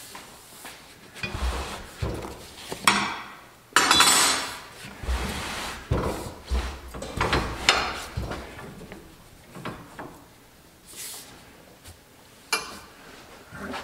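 Irregular knocks, clanks and scraping as a large truck tire is shifted and handled on a shop-built steel bead breaker. The loudest stretch, a scrape and clatter, comes about three to four seconds in.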